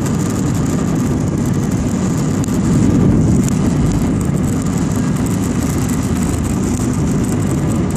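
Jet airliner heard from inside the cabin over the wing during the take-off roll: engines at take-off power and the runway rumble make a loud, steady noise, with a thin high whine over it, swelling slightly about three seconds in.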